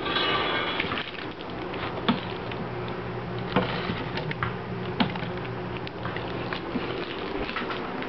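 Dry gerbil seed mix rattling as it is tipped from a small plastic cup into a food bowl, a dense rattle in the first second, then scattered clicks and knocks. A steady low hum runs underneath.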